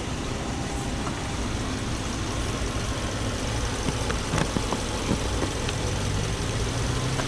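Subaru Legacy B4 2.5i's 2.5-litre horizontally opposed (boxer) four-cylinder engine idling steadily, heard from beside the open engine bay.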